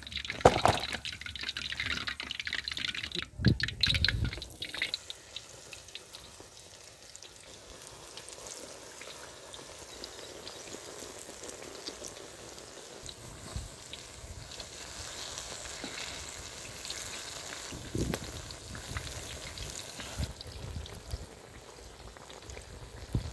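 Batter-coated potato slices frying in hot oil in a kadhai, a steady sizzle and bubbling. A few knocks sound in the first few seconds.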